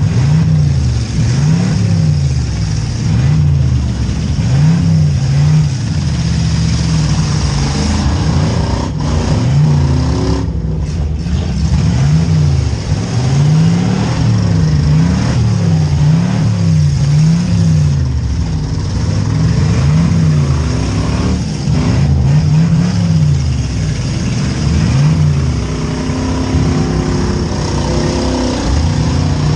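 Demolition derby cars' V8 engines revving hard, the pitch climbing and dropping over and over about once a second, over the steady noise of other engines running.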